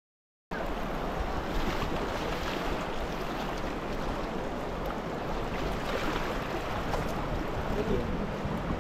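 Steady rush of flowing water, coming in after a brief gap of silence at the very start.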